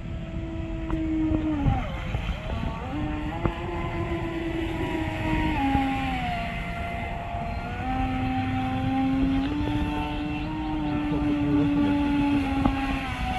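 Radio-controlled scale model speedboat running at speed across the water, its motor giving a steady whine that dips sharply about two seconds in as the throttle is eased, then picks up again and steps up and down in pitch with the throttle.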